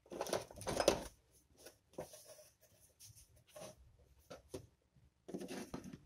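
Fridge magnets being handled by hand: a rustle in the first second and another near the end, with scattered light clicks and scrapes between as the magnets are picked up and set down on the table.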